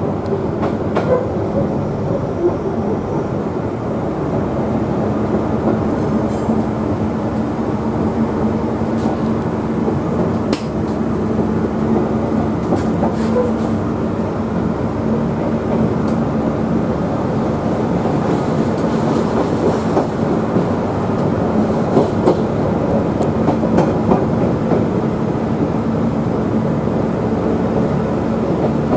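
Queensland Rail 2000 class diesel rail motor running along the track: a steady engine drone, with the wheels clicking over rail joints now and then.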